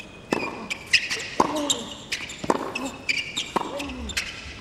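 A tennis rally on a hard court: rackets strike the ball about once a second, with ball bounces in between. Players' short grunts come with the shots, and sneakers squeak on the court surface.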